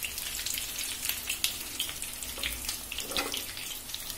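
Stuffed pointed gourds sizzling and crackling in hot mustard oil in a frying pan, with many small spattering pops; the oil is still sizzling on residual heat just after the gas is turned off. A wooden spatula moves through the pan, with a brief scrape about three seconds in.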